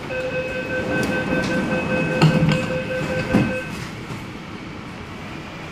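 MTR C-Train door-closing warning sounding as rapid steady beeping for about three and a half seconds while the train doors and platform screen doors slide shut, with two knocks as the doors close, the first about two seconds in.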